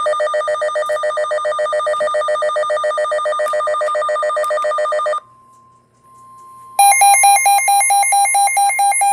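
Electronic Emergency Alert System warning tones announcing a severe thunderstorm warning: a loud, rapidly pulsing ringing tone for about five seconds, a brief faint steady tone, then a different pulsing alarm tone starting about two seconds later.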